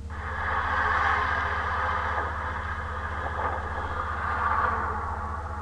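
A heavy truck driving past on a paved road: a steady rush of tyre and engine noise that swells about a second in and again near the end, then fades.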